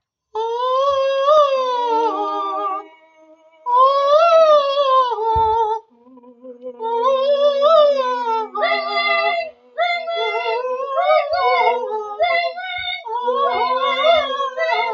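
Actors' vocal warm-up, sung without words: voices slide up and down in three long siren-like glides, then move into quicker runs of short stepped notes, with a lower note held steady underneath at times.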